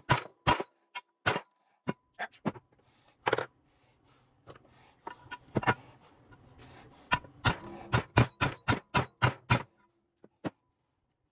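Metal transfer-case parts knocking and clicking against each other: irregular sharp knocks, with a quicker run of about four a second around eight seconds in.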